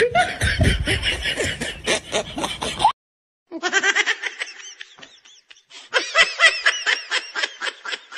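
Laughter that breaks off for half a second of silence near three seconds in, then resumes as high-pitched snickering in quick pulses, several a second.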